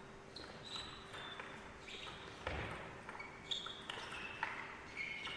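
Table tennis rally: a plastic ball clicking off the rackets and the table about every half second, with short high squeaks of shoes on the court floor in between.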